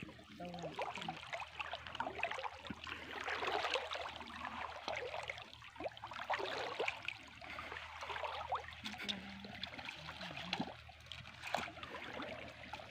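Shallow water trickling and splashing in many small, irregular splashes as hands and a fishing net work through it.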